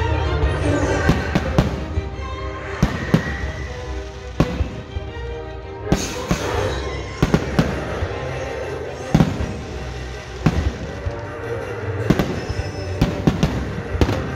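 Fireworks going off in a dozen or more sharp, unevenly spaced bangs over loud show music, with a longer rushing burst about six seconds in.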